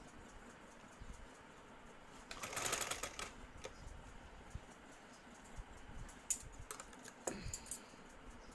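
Sewing machine stitching in a short burst of rapid, even clicking about two seconds in, then a few scattered clicks and a second short run near the end.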